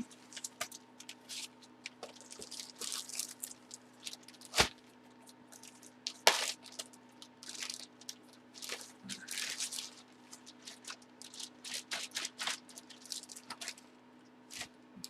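Trading cards being handled: scattered rustles, scrapes and light clicks, with a sharper snap about four and a half seconds in and another a little after six seconds.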